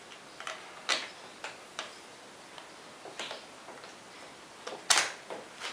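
Irregular light metal clicks and taps from a small engagement part being fitted into the cross feed of a home-built metal lathe, with one sharp click about five seconds in.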